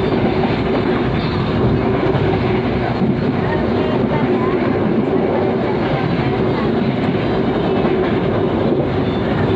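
Passenger train running along the track, heard from inside the carriage: a steady, even rumble of wheels and running gear with a constant hum.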